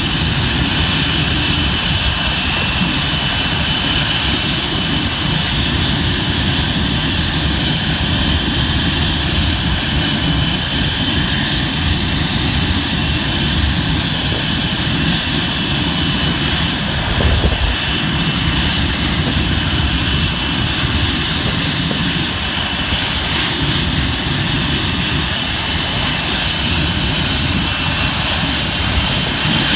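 A Tornado GR4's twin RB199 turbofan engines running steadily on the ground, a high whine over a heavy rumble.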